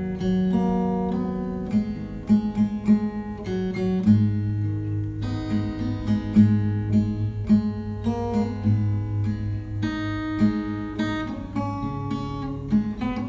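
Background music: an acoustic guitar playing quick picked and strummed notes over held low bass notes.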